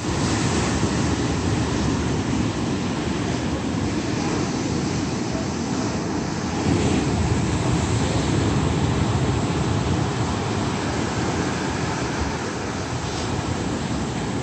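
Ocean waves breaking, a steady rush of surf that rises a little about seven seconds in.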